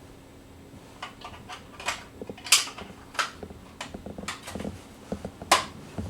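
Irregular sharp plastic clicks and knocks of a smoke detector being handled to check its battery, starting about a second in, with two louder snaps partway through and near the end.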